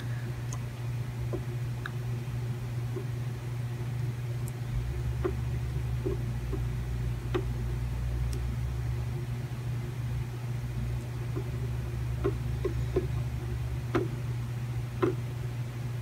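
Steady low hum with faint, scattered small clicks as a soldering iron and tweezers touch a laptop logic board while a connector is soldered down.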